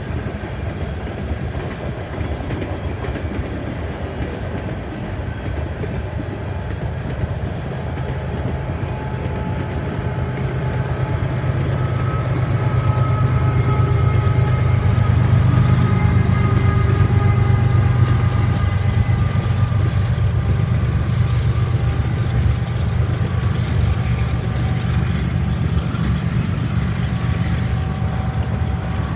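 CN manifest freight train rolling past, its cars rumbling steadily on the rails. The low engine drone of a GE ES44AC mid-train distributed-power locomotive swells as it passes, loudest around the middle, then eases off.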